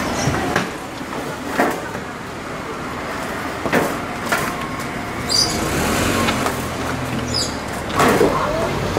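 Outdoor background of road traffic beyond a fence, a steady hum of passing vehicles, with a few scattered knocks and thumps.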